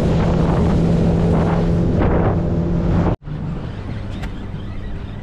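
Outboard-powered fishing boat running at speed, a steady engine hum under rushing wind and water. About three seconds in it cuts off abruptly, giving way to a quieter steady low hum with wind.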